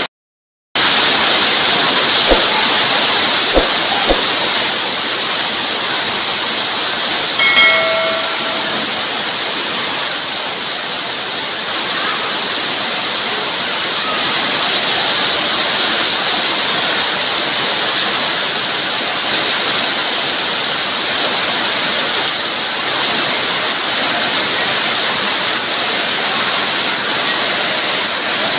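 Heavy rain pouring down steadily onto a paved yard, a dense even hiss, after a gap of under a second at the very start.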